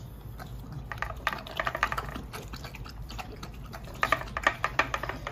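An American Bully dog lapping milky liquid from a bowl, with quick wet laps coming in two runs, about a second in and again about four seconds in.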